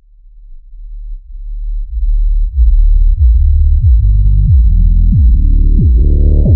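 Electronic music intro: a deep synthesizer bass fades in over about two seconds, then pulses with a falling pitch drop about every two-thirds of a second, growing brighter toward the end.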